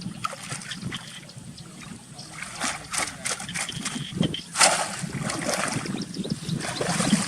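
Shallow water splashing and trickling as it is stirred by hand, with irregular splashes; the loudest comes about four and a half seconds in.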